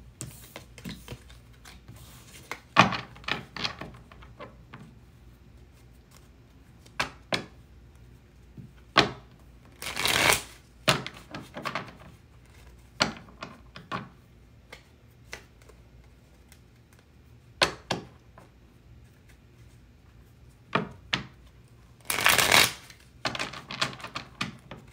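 Tarot deck being shuffled by hand: scattered soft clicks and taps of cards against each other, with two longer rustling shuffles, one about ten seconds in and one near the end.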